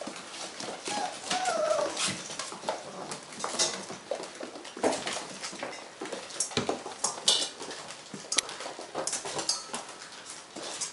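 Five-week-old Weimaraner puppies: one short wavering whimper about a second in, among many small clicks and knocks of puppies moving about on a hard floor.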